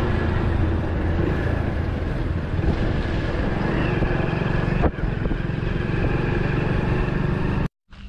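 Motorcycle running at road speed, its engine mixed with wind and road noise, with one brief sharp click partway through. The sound cuts off abruptly near the end.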